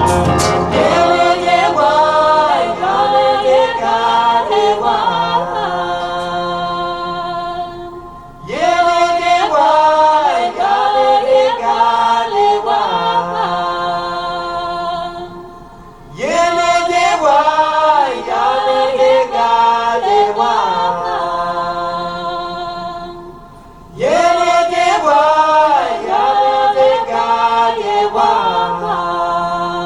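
A cappella choir singing, played back over a hi-fi system with Triangle Magellan Quatro loudspeakers. The same sung phrase comes round about every eight seconds, each entry starting loud and trailing off.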